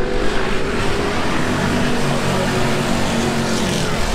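A pack of Pro Lite off-road race trucks running hard together at the race start, several engine notes overlapping over a dense roar, some slowly dropping in pitch.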